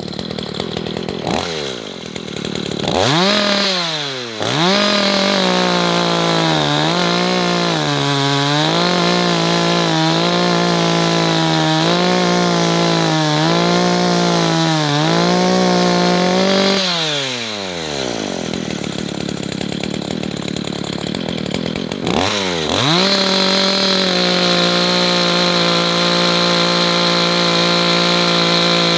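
Gas chainsaw revving up from idle and cutting through a log at full throttle, its pitch dipping again and again as the chain bogs in the wood. It drops back to idle about halfway through, then revs up again and cuts steadily to the end.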